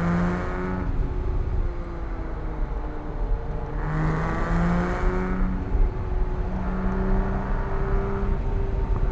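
Porsche 987.1 Cayman S's 3.4-litre flat-six under hard driving, its note climbing under acceleration several times and dropping back between, as on throttle lifts and gear changes.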